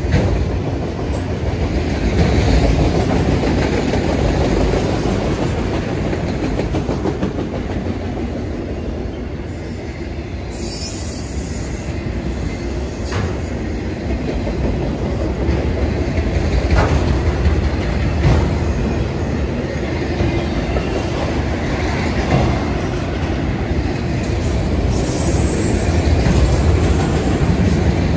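Freight train rolling past: a steady rumble of the cars on the rails with scattered wheel clicks over rail joints, and brief high-pitched wheel squeal about a third of the way in and again near the end.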